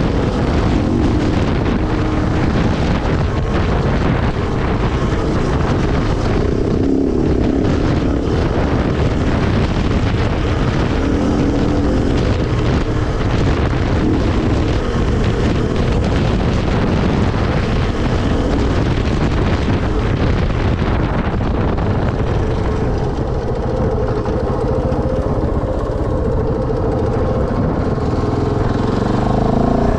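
KTM 690 Enduro's single-cylinder four-stroke engine running at speed, with wind rushing over the microphone. Near the end the bike slows and the engine revs climb again as it pulls away.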